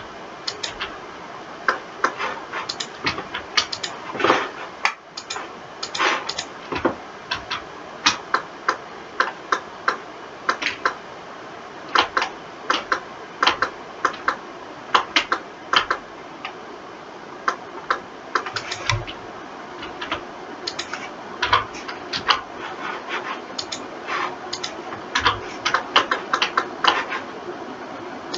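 Computer keyboard and mouse clicking irregularly, with single clicks and quick runs of clicks, over a faint steady hiss.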